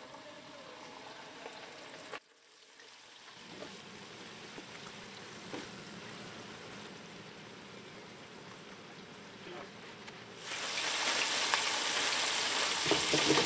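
Battered walleye pieces deep-frying in hot oil in a stovetop fryer basket: a steady sizzling hiss. It is faint at first, drops away briefly about two seconds in, and grows much louder from about ten seconds in.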